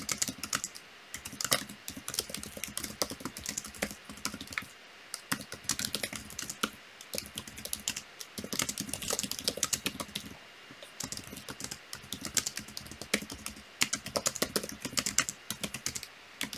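Typing on a computer keyboard: quick, irregular keystrokes in runs, broken by a few short pauses.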